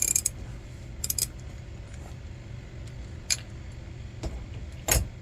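A handful of separate sharp metallic clicks and clinks of small metal parts and tools being handled, a quick pair about a second in and the loudest near the end, over a steady low hum.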